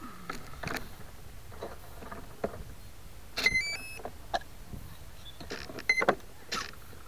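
Knocks and clicks from hands handling a model plane's wing and motor. About halfway through comes a quick series of electronic tones stepping up in pitch, and another short beep near six seconds in: the power-up tones of the electric motor's speed controller.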